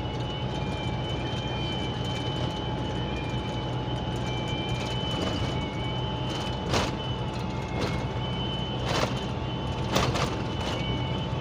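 Inside a truck cab at highway speed: steady engine and road drone with a thin, steady whistle from somewhere in the cab that has yet to be tracked down. A few brief knocks come in the second half.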